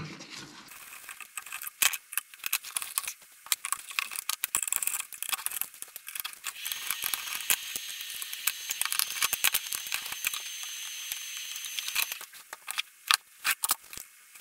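Irregular small clicks, taps and metallic clinks of a screwdriver and screws as a bench power supply's board is unscrewed and taken out of its metal case.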